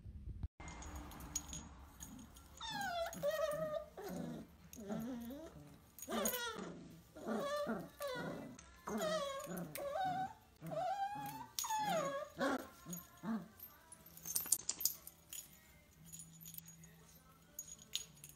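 Dachshunds whining and yelping while play-fighting: a string of high, wavering whines and yelps lasting about ten seconds, then trailing off.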